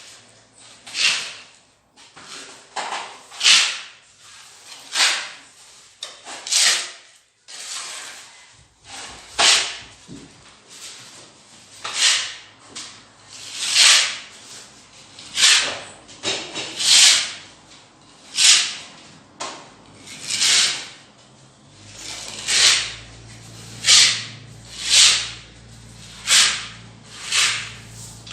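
A hand tool rubbing or scraping over a wall surface in even back-and-forth strokes, about one every second and a half. A faint low hum comes in about two-thirds of the way through.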